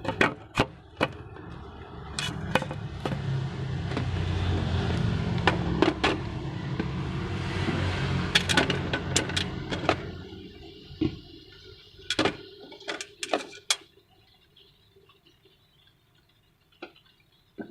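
A vehicle passing on the street, its low rumble swelling over several seconds and fading away, with a series of sharp knocks and clicks over it.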